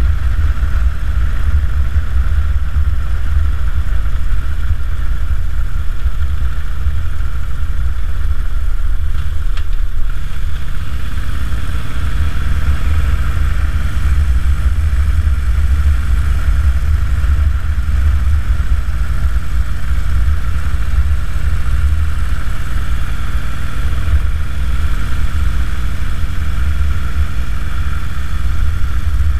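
A 2009 Harley-Davidson Dyna Super Glide's Twin Cam 96 V-twin engine running on the move, heard with heavy wind rumble on the microphone. About ten seconds in, the engine note rises as the bike accelerates, then holds steady.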